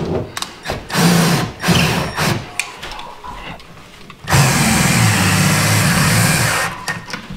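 Cordless drill/driver driving the mounting screws of an in-wall speaker: several short stop-start bursts with a few knocks, then a steady run of about two and a half seconds that stops shortly before the end.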